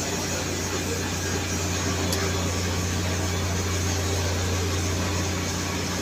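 Steady mechanical hum with a constant low drone and an even hiss.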